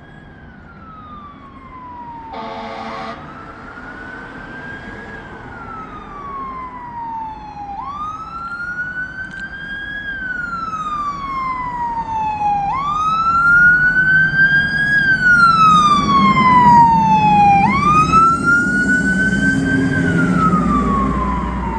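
Fire engine siren on a slow wail: the tone climbs quickly, then slides down over a few seconds, repeating about every five seconds and growing louder as the truck approaches. A short horn blast sounds about two and a half seconds in, and the truck's engine rumble grows in over the last few seconds.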